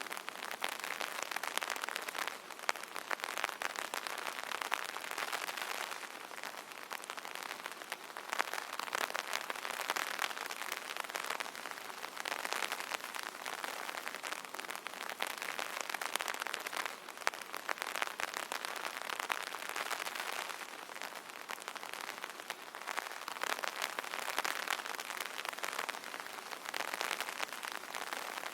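Rain pattering on an umbrella: a dense, steady patter of many small drop impacts that swells and eases every few seconds.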